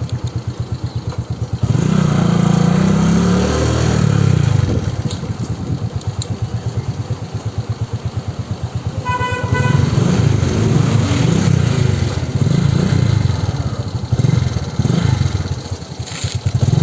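Motorcycle engine running while riding, getting louder as it picks up speed a couple of seconds in and again later, with a short horn beep about halfway through.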